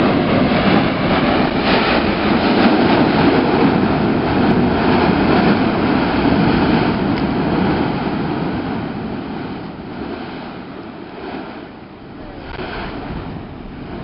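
Active eruption of Mount Yasur's vent: a loud, deep, steady rushing noise of gas and glowing lava spatter blasting out. It holds for about eight seconds, then slowly dies away.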